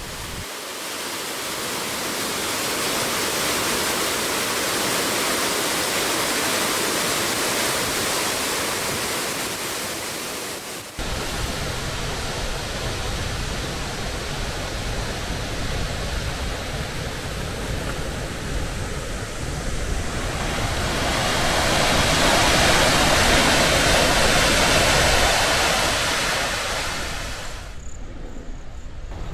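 Steady rushing of water plunging over Victoria Falls into the gorge, at dry-season flow. The sound changes abruptly about a third of the way in, grows louder for several seconds later on, and falls away sharply near the end.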